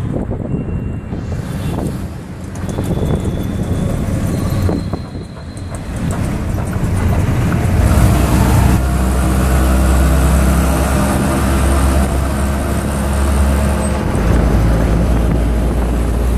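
Auto-rickshaw running through city traffic, its small engine and the road and traffic noise heard from the cab. About halfway through, the engine settles into a steady, even drone, and its pitch shifts slightly near the end.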